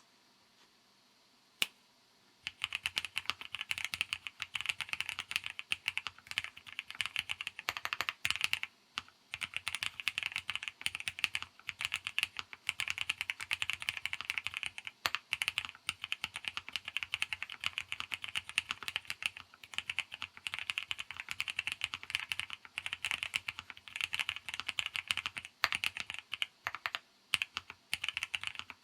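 Typing on a Sea75 custom mechanical keyboard: a lone key click, then from about two and a half seconds in, fast continuous keystrokes with a few short pauses.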